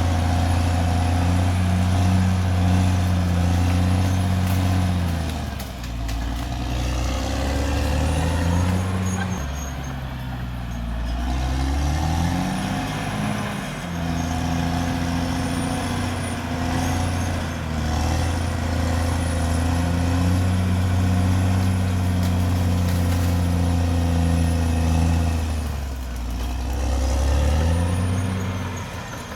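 Caterpillar D6R XL bulldozer's diesel engine running hard, its note dropping and recovering several times as the revs change.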